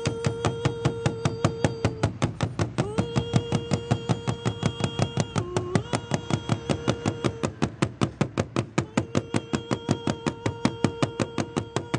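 Cowhide-headed hand drum struck with both hands in a fast, even stream of strokes, several a second. Over it runs a long held sung note that breaks off and comes back in a few times.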